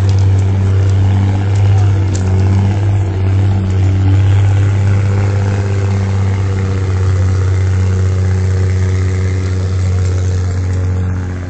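Diesel locomotive engine running steadily close by: a loud, deep, even hum with a row of overtones.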